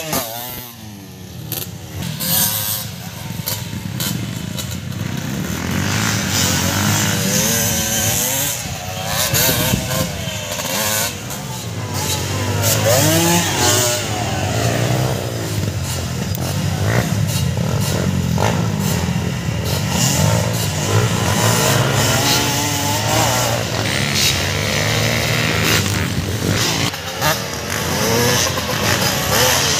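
Motocross dirt bike engines revving and easing off, their pitch rising and falling over and over.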